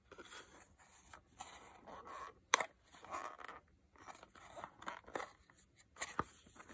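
A small cardboard product box being handled and picked at with fingers and long fingernails, giving irregular rustles, scrapes and clicks, with one sharp tap about two and a half seconds in. The flap is being worked at without coming open.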